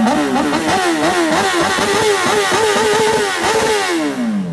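Honda sportbike engine revved in quick throttle blips, about three a second, then the revs fall away toward idle near the end.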